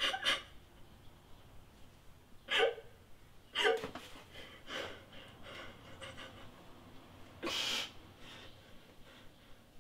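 A gagged woman's sharp breaths and muffled gasps as she struggles, a few separate ones with quiet between, the longest about three-quarters of the way through.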